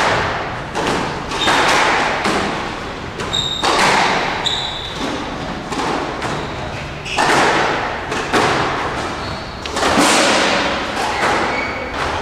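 A squash rally: the ball is struck and smacks against the court walls in repeated hard thuds, roughly one a second with short gaps, each ringing out in an echoing court. A couple of short high squeaks come a few seconds in.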